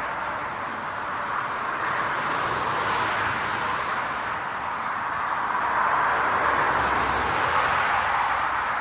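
Jet aircraft engines making a steady rushing roar that swells gently and is loudest near the end.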